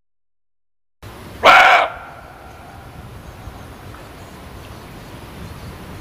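Muntjac (barking deer) giving a single short, loud bark about a second and a half in, after a second of dead silence. Faint steady background noise follows the bark.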